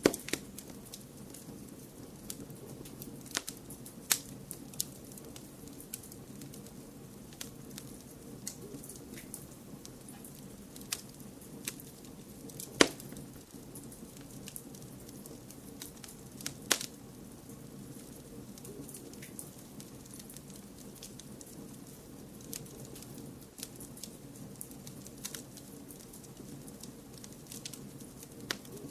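Wood fire crackling steadily over a low hiss of white noise, with irregular sharp pops, the loudest a little before the middle and again just after it.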